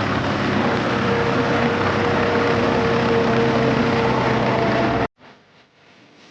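A small motor running steadily with a droning hum, cutting off abruptly about five seconds in; a much fainter motor hum follows.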